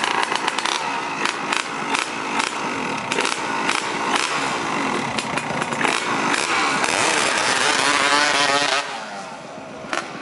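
Yamaha RD 135 two-stroke motorcycle engine running with a rapid, irregular clicking through it, the noise that the owner is showing as a fault. It revs up for a couple of seconds near the end, then drops back to a lower idle.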